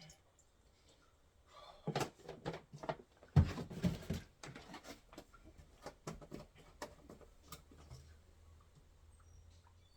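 A run of household knocks and clatters, like a door or lid being handled, with one loud thump about three and a half seconds in. A faint low hum follows.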